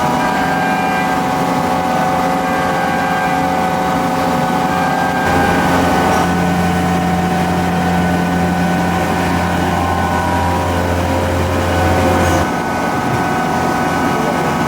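Metal-turning lathe running steadily, a mix of hum and several steady whining tones that shift as the machine works. A deep hum joins about five seconds in and cuts off suddenly near the end.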